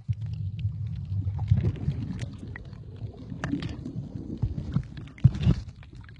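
Muffled underwater sound picked up by a camera held under the sea: a steady low rumble of water moving over the camera housing, with scattered clicks and two louder knocks about five seconds in.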